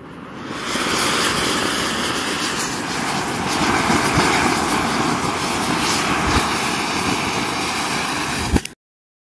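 Anar (Diwali fountain firework) burning with a loud, steady hissing rush of sparks that builds up in the first second, with a couple of sharp pops late on; the sound cuts off suddenly shortly before the end.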